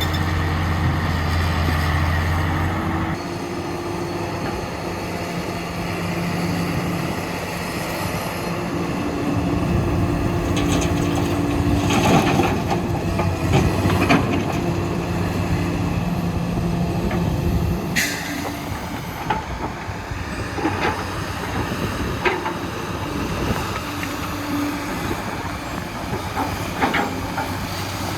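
Diesel engines of heavy construction machinery running steadily, the hum changing pitch about three seconds in, with scattered metal clanks and knocks: a cluster about halfway through and a sharp crack a few seconds later.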